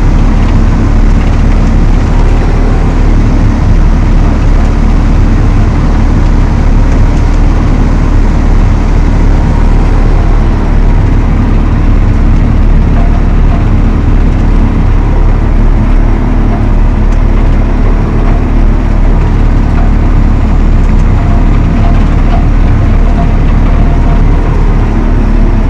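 Valtra T214 tractor's six-cylinder diesel running steadily at working speed while driving an Elho Tornado chain mower: a loud, constant deep drone with an even hum.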